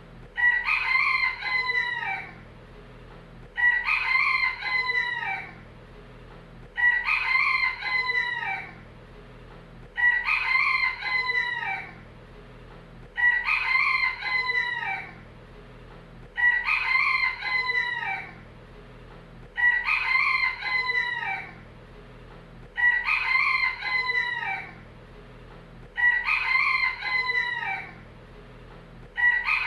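Rooster crowing, one cock-a-doodle-doo after another about every three seconds, each crow about two seconds long and alike, like the same crow repeated over and over.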